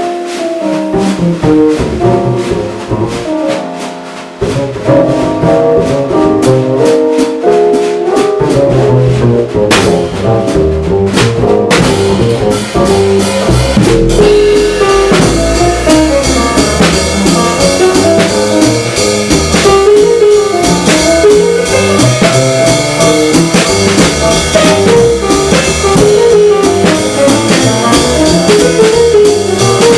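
Jazz trio of Yamaha digital piano, plucked upright bass and drum kit playing a swing tune. The bass line is patchy with short gaps early on, then from about fourteen seconds in it runs steadily under the piano and cymbals.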